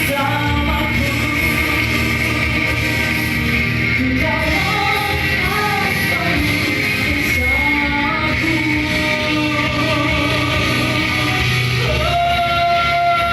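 Rock-style worship song with singing over a full band. About twelve seconds in, the voices settle on one long held note.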